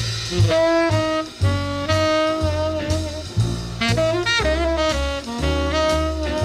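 Big-band swing jazz: a horn section of saxophones and brass playing held ensemble chords over a bass line that moves every half second or so.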